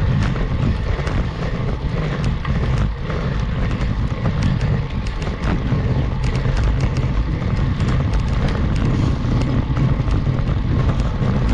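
Uneven low wind rumble on an action camera's microphone while riding a road bike uphill, with scattered sharp clicks throughout.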